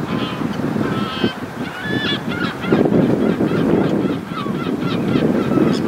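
A flock of birds calling, many short calls overlapping one another, over the steady rush of surf and wind.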